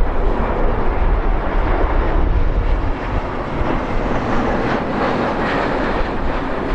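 Boeing 777 jet engines as the airliner passes low on its landing approach, a loud steady roar that swells in the middle. Strong wind buffets the microphone with a low rumble underneath.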